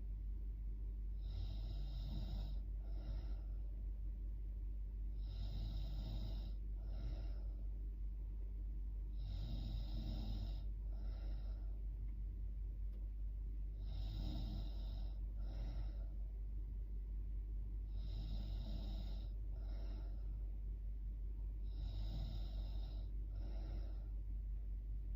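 A woman snoring in her sleep, a slow breath about every four seconds, each one a longer snore followed by a short second sound. A steady low hum runs underneath.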